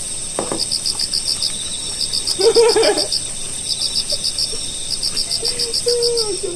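Insects chirping in short rapid trains of high pulses, repeating steadily over a continuous high-pitched whine, with a brief voice-like call about halfway through.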